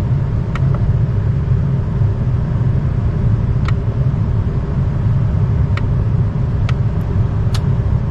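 Lennox package HVAC unit running with a steady low rumble, with a few short sharp clicks spread through it.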